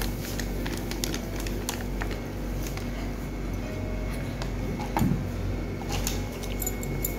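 Soft background music, with scattered light taps and rattles from a hand-held metal flour sieve being shaken over a steel bowl.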